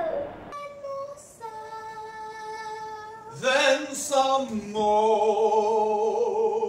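Singing: a voice holds long, steady notes with music behind it, changing pitch briefly about three and a half seconds in before settling on another long note.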